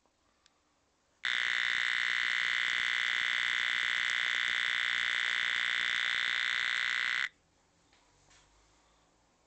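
Alarm speaker of a 555-timer light-sensing circuit sounding a loud, harsh electronic tone with a fast flutter, starting about a second in and cutting off suddenly some six seconds later: the circuit triggered by bright light.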